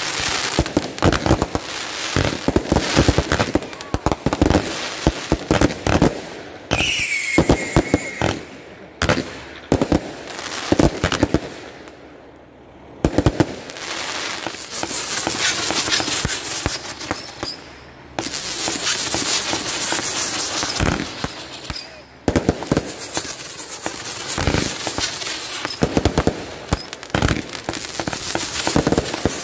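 Fireworks going off in rapid succession: dense crackling and popping from bursting stars and spark fountains, with stretches of steady hiss. There is a brief lull about twelve seconds in.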